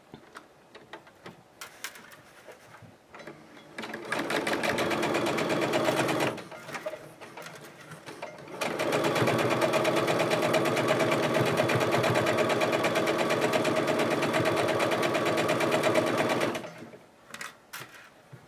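Domestic electric sewing machine stitching a seam through quilt fabric. It runs in a short spurt of about two seconds, pauses, then runs steadily for about eight seconds before stopping, with a few light clicks in the quiet stretches.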